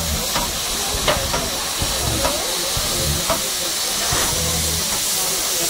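Steam hissing steadily from beneath a standing ČSD class 534.0 steam locomotive, escaping near its driving wheels. A few faint ticks sound through it.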